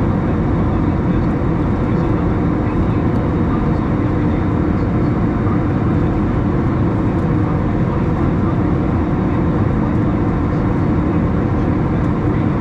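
Steady cabin noise inside an Airbus A321 climbing through about 10,000 ft: the jet engines' deep drone and rushing airflow at an even level, with a faint steady hum.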